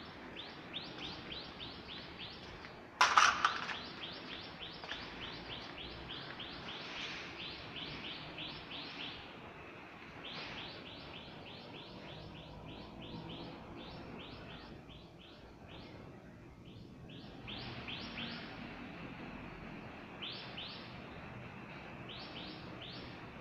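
Jacquard power loom running, giving short high-pitched strokes about three times a second that pause now and then, over a low machine hum. A loud clatter comes about three seconds in.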